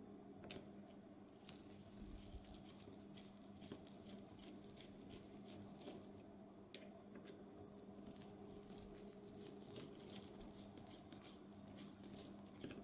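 Faint, scattered small clicks and scrapes of metal tools against the parts inside a Daiwa BG6500 spinning reel's body as the pinion gear is worked loose, with one sharper click a little past halfway.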